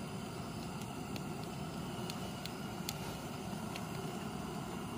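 Single-burner propane camp stove running under a cast-iron skillet: a steady, even roar, with a few faint clicks.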